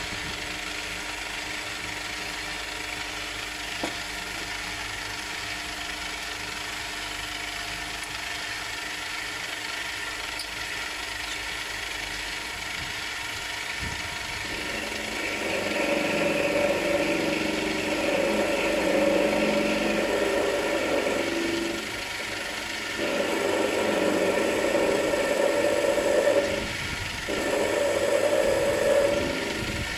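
Small metal lathe running steadily, then about halfway in a cutting tool biting into the spinning workpiece in three louder stretches with short pauses between them.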